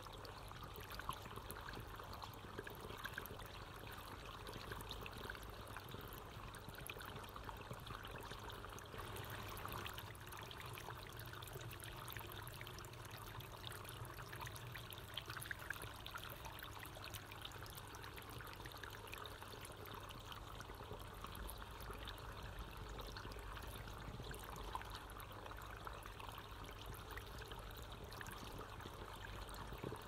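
Water fountain trickling and splashing steadily, an even flow of running water.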